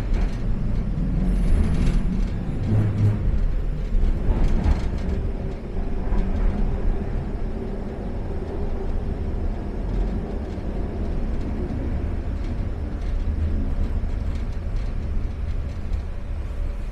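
Expo Line SkyTrain car running along the guideway, heard from inside the car: a steady low rumble, with some clicks and clatter in the first few seconds and a faint hum that comes and goes around the middle.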